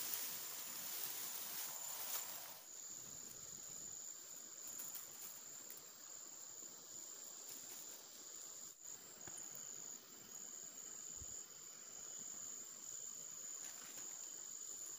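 Insects keep up a steady, high-pitched chirring trill. During the first couple of seconds there is also rustling of grass and leaves being handled.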